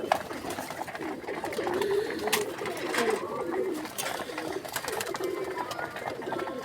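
Pigeons cooing, one wavering coo after another, with a few sharp clicks in between.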